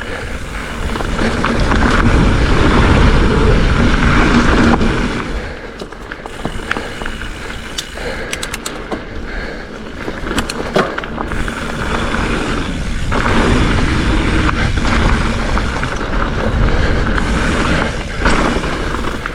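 Hardtail mountain bike riding fast down a dirt singletrack: a steady rumble of wind and knobby tyres on dirt, louder in two long stretches, with the chain and frame rattling and clacking sharply over bumps.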